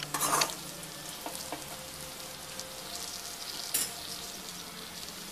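Diced potatoes roasting in oil in a kadai, sizzling steadily. A spatula scrapes through them in the first half second, and there is one sharp click near four seconds in.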